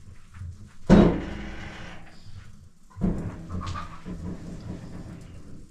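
An animal calling twice, about two seconds apart, each call starting abruptly and loud and trailing off over a second or two.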